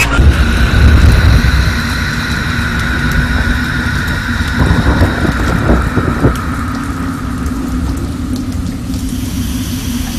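A low, steady rumble like a running motor, loudest in the first two seconds and then settling, with a faint steady whine above it.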